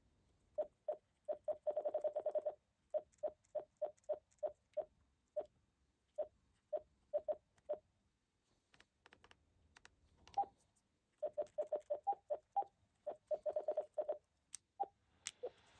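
TYT MD-9600 mobile radio running OpenGD77 firmware giving its key beeps as its buttons and controls are worked: many short beeps at one pitch, some in quick runs and one held briefly, a few at a slightly higher pitch, and a couple of sharp clicks near the end.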